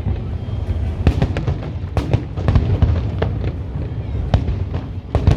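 Aerial fireworks bursting: a rapid run of sharp bangs and crackles, with louder reports about two and four seconds in, over a steady low rumble.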